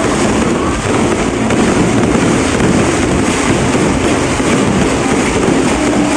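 Fireworks display going off in a dense, continuous barrage, the bangs running together without a pause.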